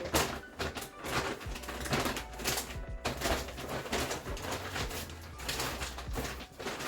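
A shopping bag and groceries being handled and packed: irregular rustles and light knocks, with quiet background music underneath.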